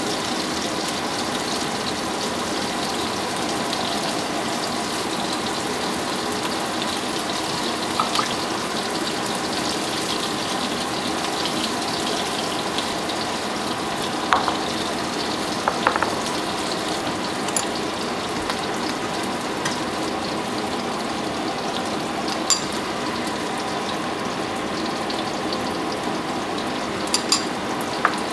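Steady sizzling hiss of beef patties frying in a pan, with a few light taps and clicks as a spatula and toppings are set on a wooden cutting board.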